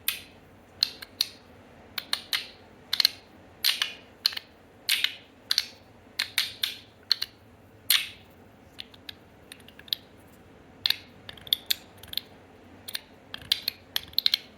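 Stainless steel magnetic fidget slider being slid back and forth, its parts snapping into place with sharp metallic clicks, irregular and sometimes in quick pairs, with a pause of a couple of seconds after the middle.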